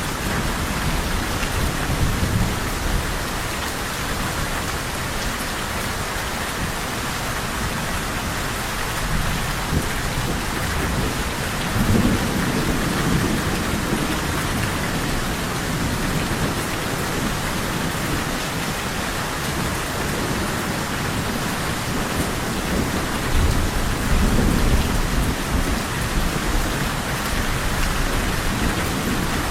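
Steady, heavy rain falling on a surface, with low rolls of thunder swelling under it a few times, most strongly about twelve seconds in and again around twenty-four seconds in.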